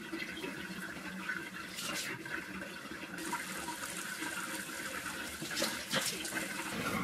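Bathroom sink tap running steadily while water is splashed onto a face with the hands, with a couple of louder splashes about two seconds in and near the end.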